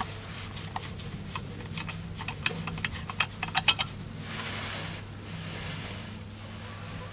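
Light metallic clicks and ticks as a chrome-plated brass doorknob air filter is unscrewed by hand from a brass intake fitting, thickest and loudest toward the middle, over a steady low hum.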